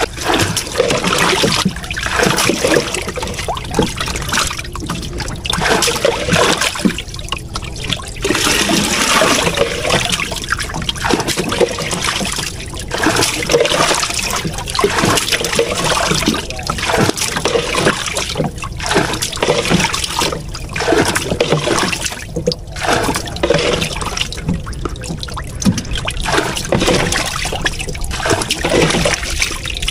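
Water being bailed by hand with a plastic scoop from a boat's fish hold and poured over the side into the river: scooping, splashing and pouring in repeated surges every couple of seconds.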